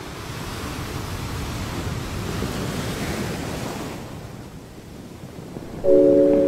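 Sea waves breaking and washing up a pebble shingle beach, swelling to a peak and then drawing back. Music with steady mallet-like tones starts suddenly near the end and is louder than the surf.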